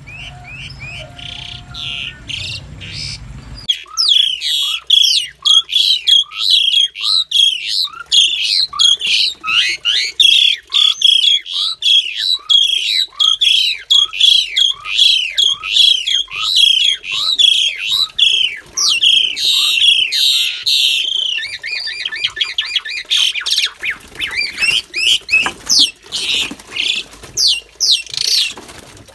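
Asian pied starlings squawking harshly as a male and female put together in one cage clash. A long run of calls, each falling in pitch and repeating more than once a second, turns into a denser, broken chatter near the end.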